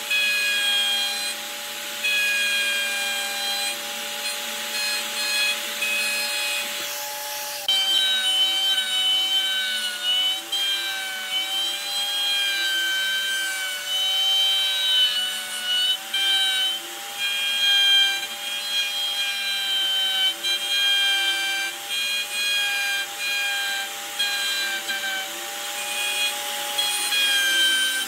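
Handheld plunge router running at speed and cutting a shaped recess into a solid wooden block: a steady high motor whine over the hiss of the bit chipping wood, its pitch dipping and wavering as the cutter takes load.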